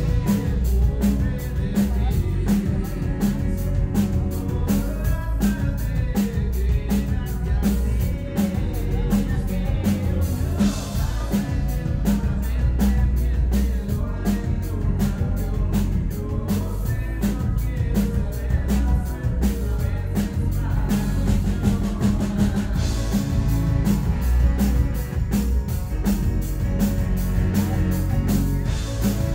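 Live rock band playing amplified through a stage PA, drum kit keeping a steady beat over bass and other instruments.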